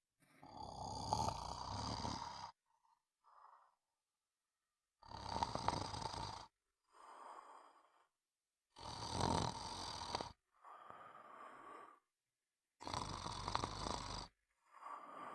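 Snoring in a slow, even rhythm: four loud snores about four seconds apart, each followed by a quieter, shorter breath.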